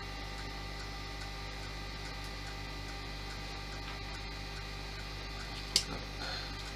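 Steady electrical mains hum, with a single sharp tap near the end.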